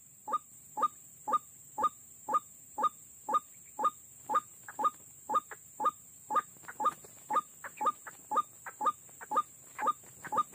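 White-breasted waterhen (ruak-ruak) calling, a short downward-sweeping note repeated steadily about twice a second, over a faint steady high-pitched hiss.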